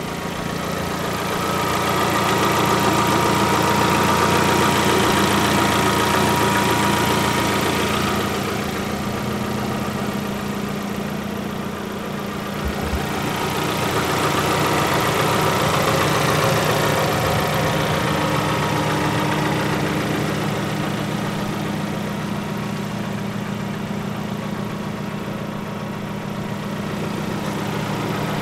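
Lada Vesta's 1.6-litre 16-valve inline-four engine idling steadily, heard over the open engine bay, swelling in loudness twice.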